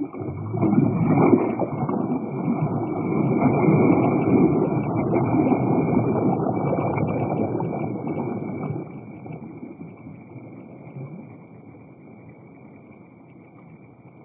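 Water sloshing and splashing as a largemouth bass is worked in shallow water and released, loud and uneven for about nine seconds and then fading to a quieter wash.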